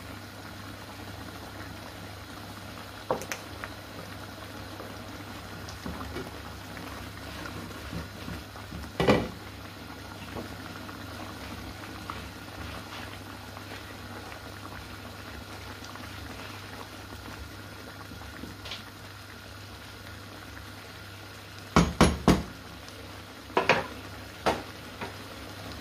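Chicken-stock sauce with lemon and herbs bubbling steadily in a pan on the stove. A few sharp knocks of a utensil on the pan break in, the loudest about nine seconds in, then several close together near the end.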